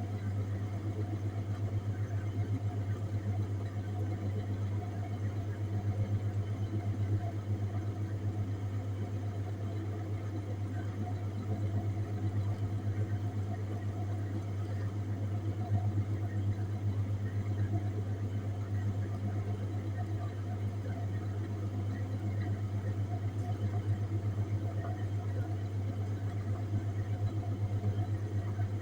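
Refrigerated display case running: a steady low hum with fainter overtones above it.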